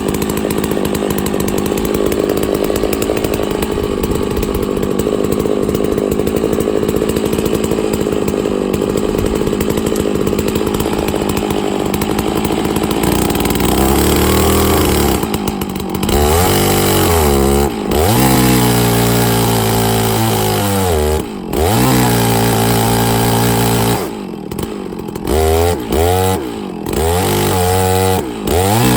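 Stihl MS660 two-stroke chainsaw (about 90 cc) driving a 64-inch milling bar, running steadily at first. From about halfway through, the engine speed drops and picks up again several times as the saw works hard under load.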